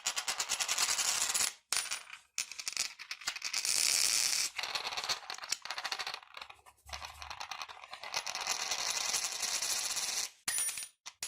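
Coins spinning and wobbling on a hard surface, a fast metallic rattle. Several spins follow one another, each broken off by a brief pause.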